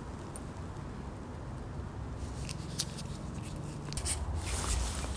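Gloved hands working a rubber boot onto a motorcycle handlebar control: rubbing with a few small clicks and scrapes. A low rumble comes up near the end.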